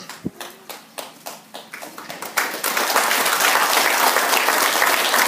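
Audience applause: a few scattered claps at first, swelling into steady clapping from about two seconds in.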